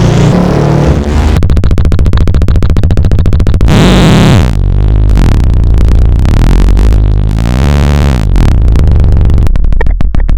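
KORG iMS-20 analog-modelled synthesizer producing a raw sound effect: a loud, noisy buzz over a low drone, chopped into a fast even pulse. About four seconds in it swells and sweeps in pitch, then the pulsing returns and turns sharper near the end.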